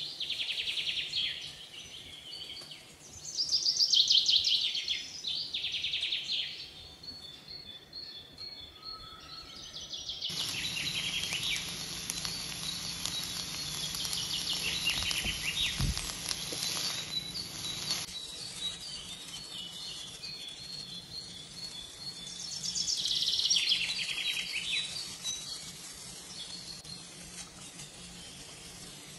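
Bird chirping in a few short bursts of rapid trills, the loudest about four seconds in and again near the end. For several seconds in the middle there is a steady hiss of vegetables stir-frying in the wok.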